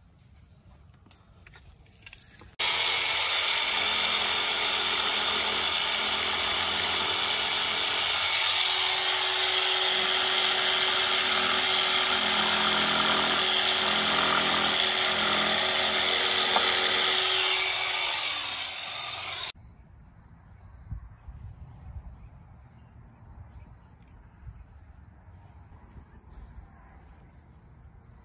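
Handheld power saw cutting through a pressure-treated board for stair stringers: a loud, steady motor-and-blade noise that starts suddenly, runs for about seventeen seconds, sags in pitch near the end and then cuts off.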